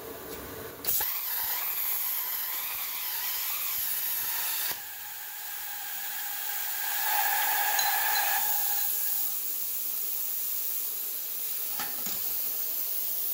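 Air plasma cutter torch hissing, starting abruptly about a second in as it fires on the steel tube, then dropping to a lower, steady hiss just before five seconds in.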